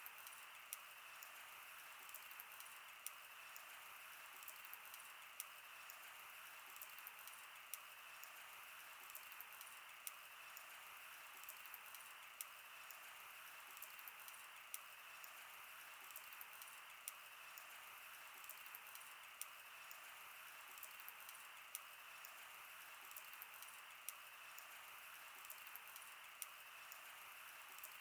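Faint wood bonfire crackling: irregular sharp pops and snaps over a steady soft hiss.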